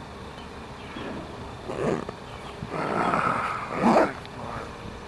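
Dog growling for about a second and a half, loudest near its end, after a shorter sound a second earlier.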